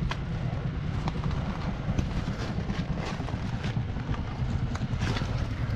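Footsteps crunching irregularly over loose ballast stones and leaf litter, over a steady low rumble.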